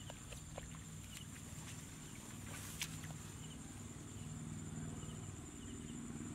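Hands rustling and pulling in wet grass and mud, with scattered small clicks and one sharper click about three seconds in, over a steady low hum and a faint, steady high tone.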